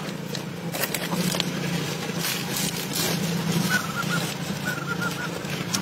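A steady low engine hum, with scattered clicks and a few short high chirps in the second half.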